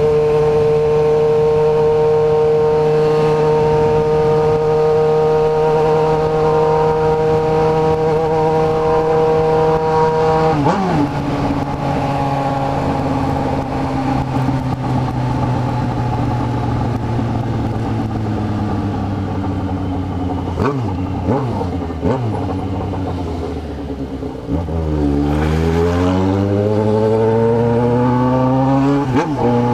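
Motorcycle engine heard from the rider's seat while riding. It holds a steady note for about ten seconds, then drops to a lower note as the throttle eases. It dips once more and then rises in a long, steady acceleration near the end.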